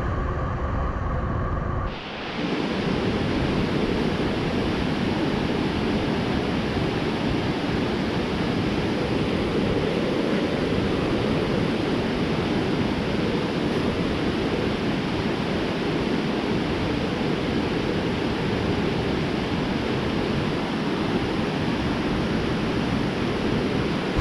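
Swollen, fast-flowing muddy river rushing past its bank, a steady, even noise of running water that begins about two seconds in.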